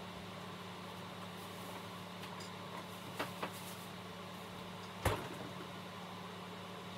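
Steady low hum of a kitchen, with two light clicks a little after three seconds in and a single sharp knock about five seconds in.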